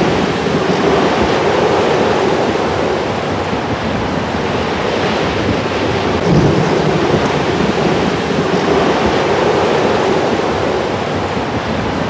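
Cyclone storm: strong gusting wind and rain in a dense, steady roar, swelling in a heavy gust about six seconds in.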